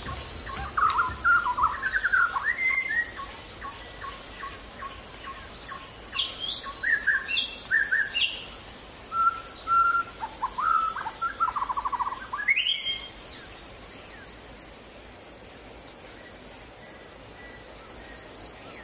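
Birds chirping and singing in several short runs of quick, gliding notes, the song dying away after about thirteen seconds, over a steady high insect drone.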